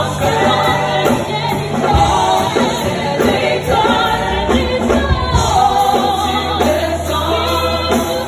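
Live gospel worship song sung in French by lead singers and congregation, over a band with steady bass notes and a regular drum beat.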